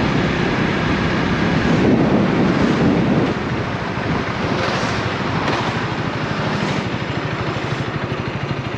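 Honda Rebel 250's single-cylinder engine running while the motorcycle is ridden along, with a steady low pulsing, under heavy wind noise on the microphone. The level eases a little about three seconds in.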